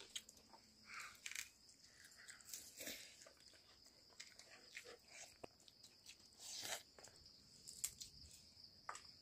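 Near silence: faint room tone with a steady high-pitched hiss and a few soft scattered clicks.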